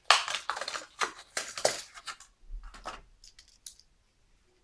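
A Hot Wheels blister pack being opened by hand: the plastic blister and cardboard backing crackle and rip in quick bursts. The sound dies down to a few light clicks near the end.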